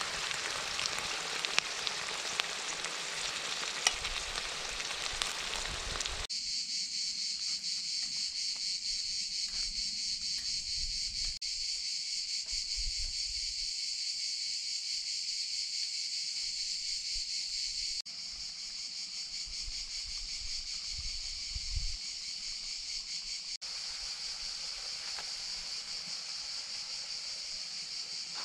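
Chicken and peppers sizzling in a hot cast-iron skillet over a wood fire as canned tomatoes are poured in, for about six seconds. Then a steady, high, even buzz of insects that carries on to the end.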